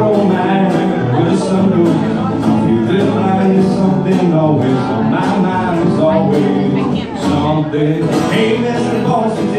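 Acoustic guitar strummed in a steady country-style rhythm, played live as a song.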